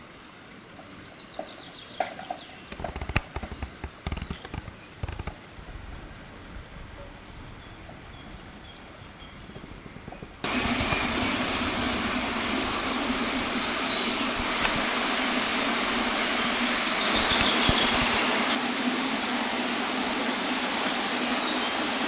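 Quiet outdoor ambience with a few faint bird chirps and soft knocks. About halfway through, a loud, steady rushing noise starts suddenly and runs on evenly until it cuts off at the end.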